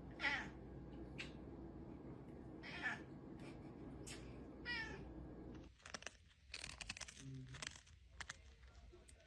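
Domestic cat giving about four short, high meows over a steady low hum, the first the loudest. After about six seconds come scattered clicks and rustling.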